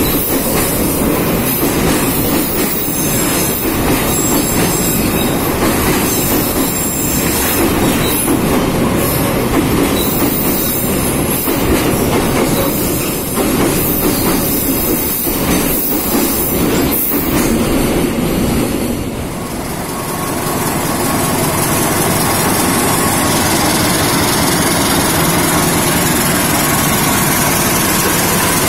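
Container freight train's flat wagons rolling past close by: steel wheels rumbling and knocking over the rails. About two-thirds of the way through it changes to the steady running of a CC206 diesel-electric locomotive's engine.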